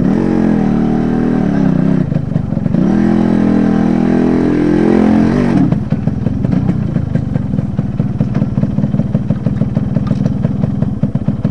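Yamaha RX100's two-stroke single-cylinder engine revving hard under load as the motorcycle climbs over loose rock, the pitch falling and then rising again. About six seconds in the throttle is shut and a motorcycle engine settles to a lower, steady, pulsing run.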